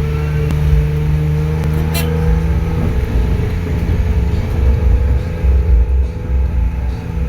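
An engine running with a steady hum over a low rumble, with a single sharp click about two seconds in.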